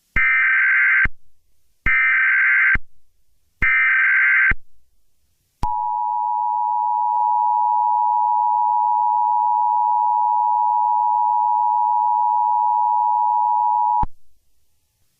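Emergency Alert System alert opening: three short blasts of SAME header data tones, each just under a second long and evenly spaced. These are followed a second later by the two-tone EAS attention signal, held steady for about eight seconds, which cuts off suddenly.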